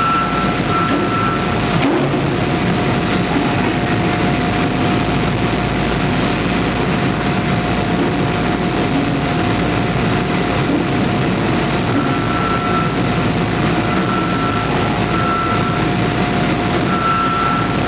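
Forging press and shop machinery running with a steady, heavy noise and a constant whine, while a warning beeper sounds in short beeps twice at the start and about four more times near the end.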